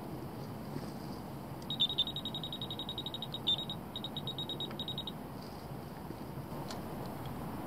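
Electronic carp/pike bite alarm on a rod pod giving a fast run of high beeps, about ten a second, for about three seconds with a short break in the middle, as line is drawn across it while the rod is set after the cast.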